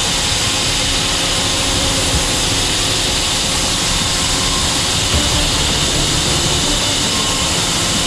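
Custom hydraulic band sawmill with a 67 hp turbo diesel running steadily under load as its band blade saws through a large log. It makes a loud, even mix of engine noise and cutting noise.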